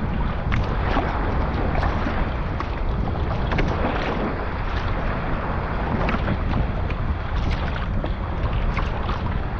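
Wind buffeting the microphone in a moderate breeze, with water splashing and lapping irregularly around a sea kayak underway at sea.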